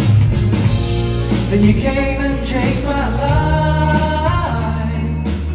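Live pop ballad with a band: a steady bass line and guitar under a male voice singing, holding a long note that bends near the end.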